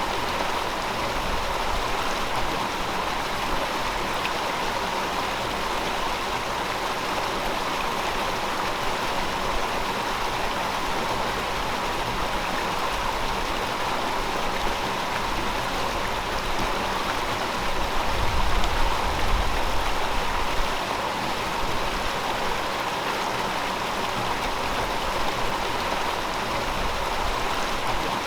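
River water flowing steadily over rocks, a continuous rushing and babbling. About two-thirds of the way through it swells for a few seconds with a deeper rumble before settling back.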